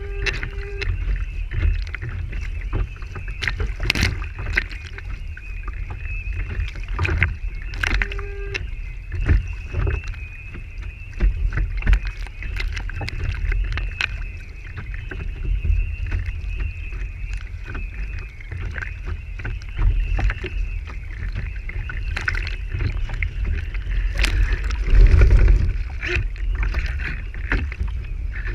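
Water rushing and slapping along the hull of a radio-controlled IOM racing yacht, heard from close on its deck, with a heavy low rumble and many short knocks of spray and chop. A thin steady high whine runs underneath, and the rush surges louder about 25 seconds in.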